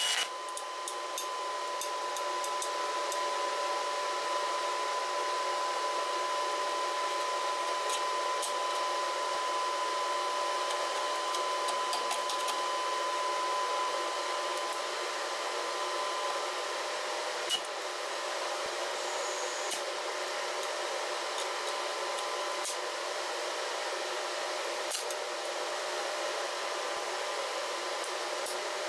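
Electric welding arc burning on thin sheet steel: a steady crackling hiss with scattered sharp pops. A faint steady tone sounds along with it for roughly the first half.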